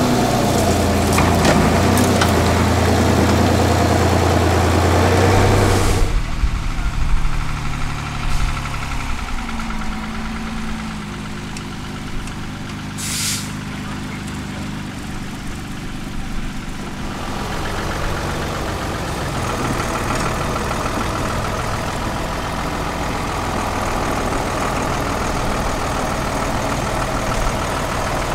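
A 6x6 Praga trial truck's engine running as the truck crawls over rough ground, steady and close at first, then quieter, and working harder with rougher, louder revs over the last ten seconds. A short hiss cuts in about halfway through.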